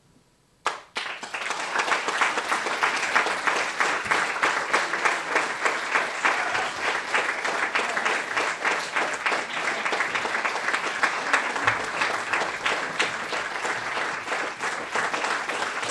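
Audience breaking into applause: after a moment of near silence, one sharp clap about a second in, then many hands clapping densely and steadily.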